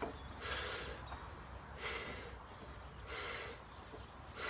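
A woman's breathing, heavy with exertion during glute bridge reps: four audible breaths, about one every 1.3 seconds, in time with the hip lifts.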